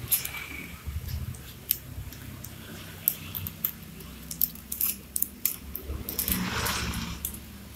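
Protective masking film being peeled off small laser-cut 2 mm acrylic pieces by hand: irregular sharp plastic clicks and crackles, with a longer rustling peel about six seconds in, over a low steady hum.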